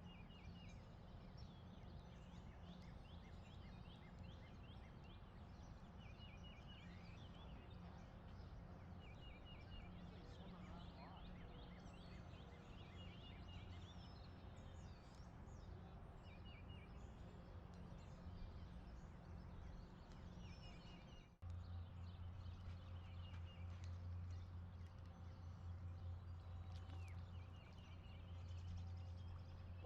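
Faint outdoor ambience: small birds chirping in short, quick series of high notes every few seconds over a steady low hum. About two-thirds of the way in the sound drops out for an instant and the hum comes back louder.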